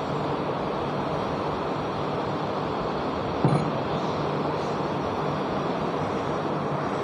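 Steady low rumbling background noise in the room, with a brief thump about three and a half seconds in.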